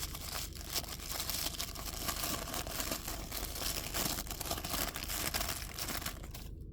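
Crinkling and rustling of knife packaging being handled, a dense run of small crackles that stops shortly before the end.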